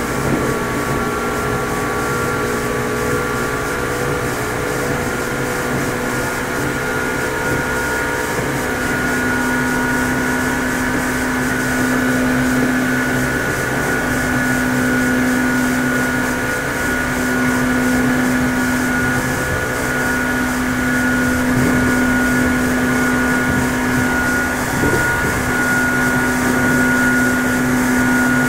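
Meitetsu 6800 series electric train running, its traction motors and gears giving a steady hum at an even pitch.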